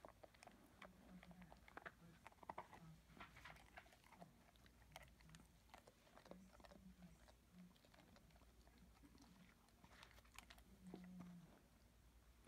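A dog chewing and licking an icicle: faint, scattered small crunches and crackles of ice in its mouth.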